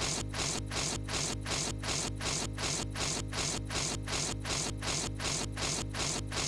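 Cartoon puppy licking sound effect, a wet slurping lick repeating rapidly about three or four times a second in a tight loop, over a steady low hum.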